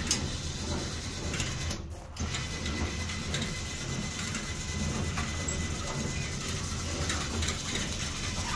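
Overhead cable hoist running and hauling a hard-shell rooftop tent: a steady low hum from the hoist with rapid clicking of the cable and pulleys, dipping briefly about two seconds in.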